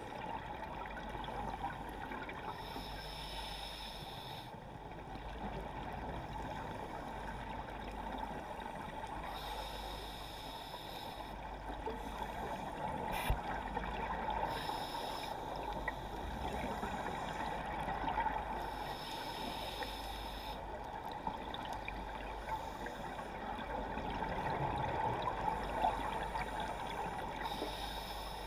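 Underwater ambience heard through a camera housing, with bursts of scuba regulator exhaust bubbles every several seconds as the diver breathes out. A single sharp click about 13 seconds in.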